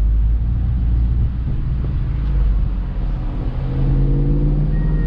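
Infiniti M45's 4.5-litre V8 running while the car is driven, a steady low rumble that rises in pitch as the engine revs up and the car accelerates, about three and a half seconds in.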